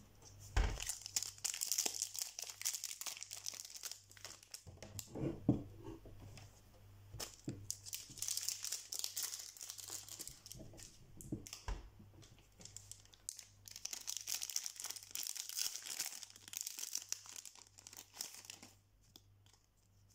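Foil booster pack wrapper crinkling and tearing as a pack of trading cards is opened, in three long bouts with quieter gaps.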